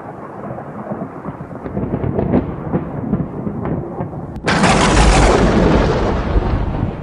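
Thunder sound effect: a rumble with scattered crackles for about four seconds, then a sudden loud lightning crack about four and a half seconds in that rumbles on and slowly fades.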